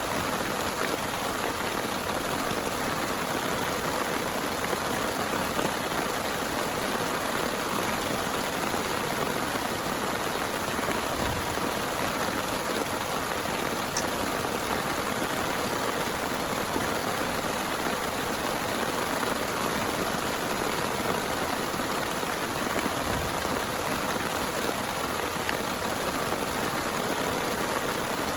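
Heavy rain falling steadily, an unbroken wash of drops with no letup.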